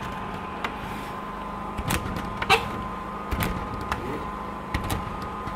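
Squeegee pressed and drawn over wet window film on glass, pushing the water out from under it: scattered knocks and scrapes, with one short, sharp squeak about two and a half seconds in, over a steady hum.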